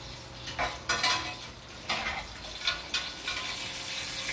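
Metal utensils clinking and scraping against a stainless steel roasting pan and its rack as a roast duck is turned over, several sharp clinks in the first three seconds. A steady hiss builds near the end.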